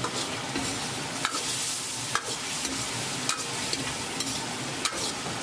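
Tendon in a thickened sauce sizzling in a wok while a metal ladle stirs it, clinking and scraping against the wok about once a second. The sauce has just been thickened with a little starch slurry.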